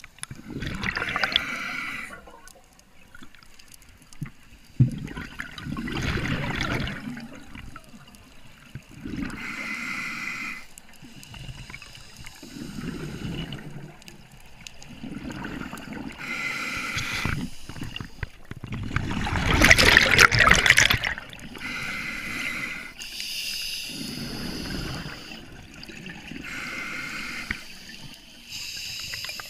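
Scuba diver breathing through a regulator underwater: a hissing inhale alternating with a gurgling burst of exhaled bubbles, one breath every few seconds. The loudest bubble burst comes about two-thirds of the way through.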